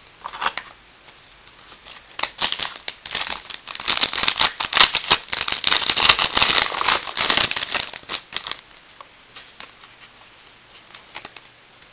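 Wrapper of a baseball card pack being torn open and crinkled by hand: a dense run of crackling from about two seconds in to about eight and a half seconds, with a few lighter rustles before and after.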